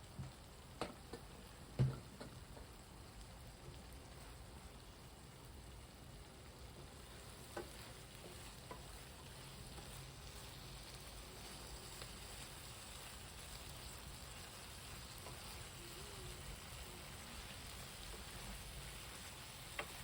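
Chicken sizzling quietly in a pan as it dry-roasts with pepper, a steady frying hiss. A few knocks of a stirring utensil against the pan come in the first two seconds, with another one near the end.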